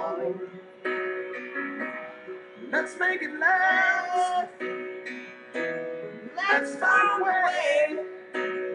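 Slow ballad music with plucked guitar chords and a wavering lead melody in two long phrases.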